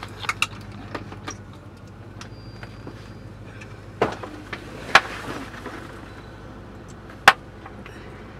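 Car engine idling steadily, heard from inside the cabin, with scattered clicks and a few sharp knocks, the loudest one near the end.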